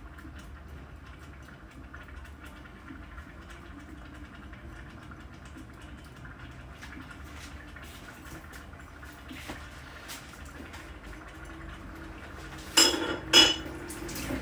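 Pot of chicken, onions and spices cooking on the hob, giving a faint steady crackle of many small ticks. Near the end come two loud clanks of kitchenware about half a second apart.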